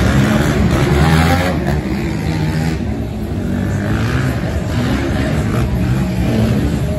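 Quad ATV engines revving up and down as two quads race around a dirt track, the pitch rising and falling with the throttle.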